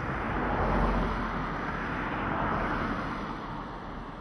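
A vehicle passing unseen, its rushing noise swelling to its loudest about a second in and fading away toward the end.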